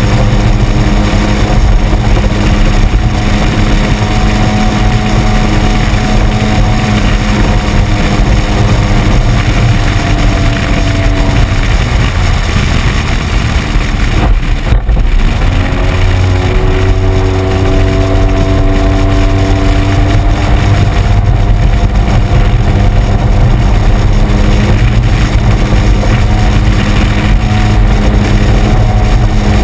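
Boat outboard motor running at speed, a steady drone under heavy wind and water noise on the microphone. Its pitch sags briefly about halfway through, then picks back up.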